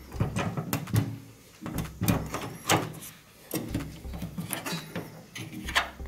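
Plastic filter access flap at the bottom of a Samsung front-loading washing machine being handled and pried open: a series of irregular sharp plastic clicks and knocks.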